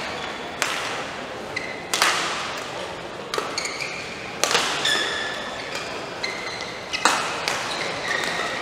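Badminton rally: rackets striking the shuttlecock in sharp cracks about every one to two seconds, each echoing in the hall, with short high squeaks of shoes on the court floor between the hits.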